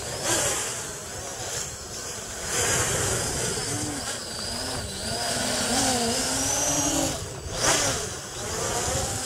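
Tornado Whirlwind 600 V-tail multirotor's electric motors and propellers whining in flight, the pitch rising and falling continually with throttle as it flips and rolls overhead.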